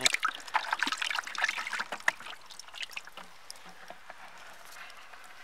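Small live fish splashing in a plastic bucket of water, then water and fish tipped out into shallow river water with a run of splashes and trickling that thins out towards the end.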